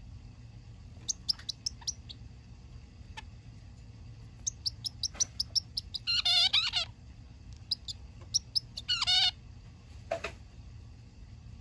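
Male zebra finch calling: runs of short, high chirps that twice build into a longer, fuller phrase, about six and nine seconds in.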